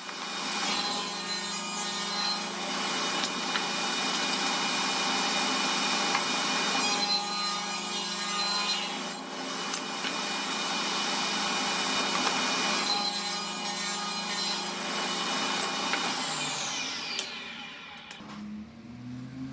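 Electric saw cutting wood: its motor runs at a steady pitch through several long cuts, lighter in between as the blade spins freely. About four-fifths of the way in it is switched off and winds down, its pitch falling as it fades.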